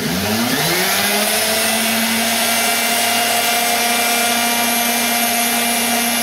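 Variable-speed flex shaft grinder spinning up in the first second and then running steadily with a constant whine, driving a diamond-coated bit against glass under water to grind a starting divot.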